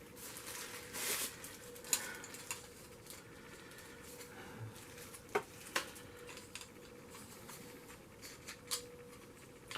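Faint handling noises: a few small, sharp clicks and light rustling of small plastic camcorder parts and packaging being picked up and fitted, with a faint steady hum.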